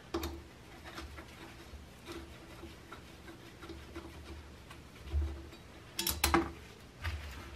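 Hex key working the bolts out of a pitbike brake disc, with quiet metal ticks and rubbing and a couple of sharper metal clinks about six seconds in. The bolts turn now that their threadlocker has been softened with a heat gun.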